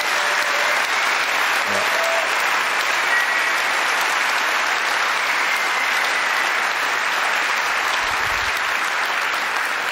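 A large audience applauding, a steady, sustained clapping.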